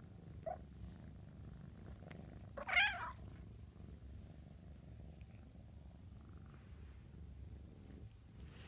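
Kitten purring steadily while being stroked, with a short mew about half a second in and a louder mew around three seconds in.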